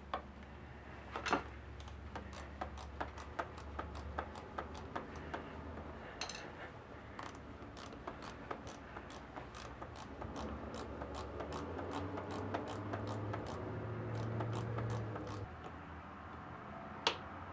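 Ratcheting 10 mm wrench clicking steadily, about three clicks a second, as it runs in a starter motor mounting bolt, with a couple of louder knocks of metal on metal near the start and end.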